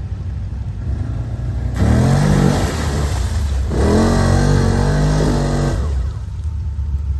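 ATV engine running low, then revved up hard twice, each rev rising in pitch and lasting about two seconds, before dropping back to a low rumble.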